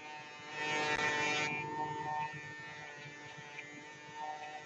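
Electric shaver running against the beard on the chin with a steady buzz. About half a second in, the buzz turns louder and harsher for about a second, then settles back to the steady buzz.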